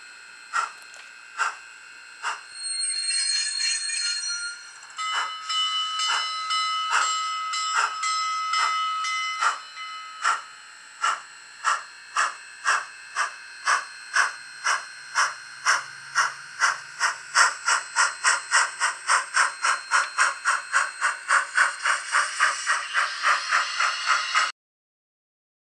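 Digital steam sound from the Rivarossi H0 Union Pacific Big Boy model locomotive's onboard sound unit. Exhaust chuffs speed up steadily from about one a second to about three a second as the model pulls away and gathers speed. There is a burst of hiss early on and a long held steam-whistle blast about five to nine seconds in, and the sound cuts off suddenly near the end.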